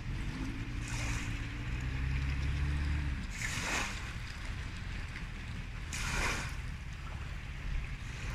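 Thunderstorm rain heard from a car, with broad swishes repeating about every two and a half seconds. A low steady hum is under it for the first three seconds and then cuts off.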